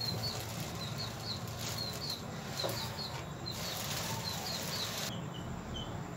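Small birds chirping: short high chirps in quick groups of two or three, over a steady low hum. About five seconds in, the sound changes abruptly and the chirps go on slightly lower.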